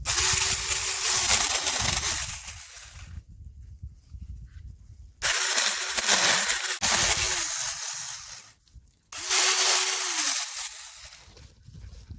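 Saker mini battery-powered electric chainsaw cutting branches in three runs of a few seconds each, its motor whine dropping away as it winds down after each cut.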